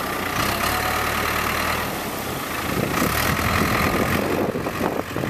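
Ford 555C backhoe's diesel engine running steadily.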